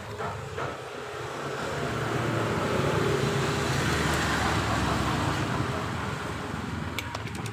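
A passing motor vehicle: engine hum and road noise swelling over a few seconds and easing off, with a few sharp clicks near the end.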